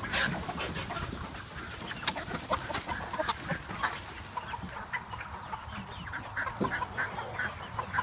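A flock of chickens clucking steadily, many short calls overlapping, as they crowd out of their coop, with scattered light clicks and rustles in the straw.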